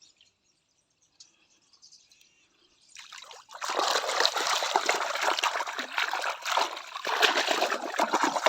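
Water pouring and splashing over plastic animal toys as they are washed, starting about three and a half seconds in and running steadily after a near-quiet start.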